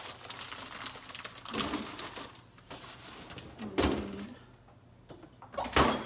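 Kitchen handling noises: a plastic bag rustling and crinkling for the first couple of seconds, then two sharp knocks of things being put down or bumped, about four seconds in and again near the end.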